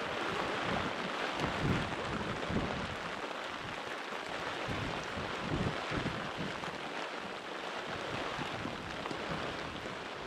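Steady hiss of rain with wind gusting over the microphone, causing irregular low buffeting.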